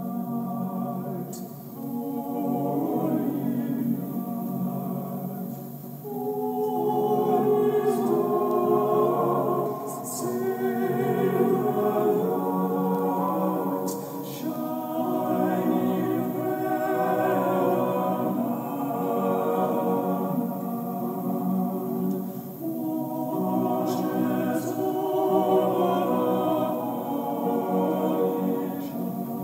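A choir singing slow, sustained chords in long swelling phrases.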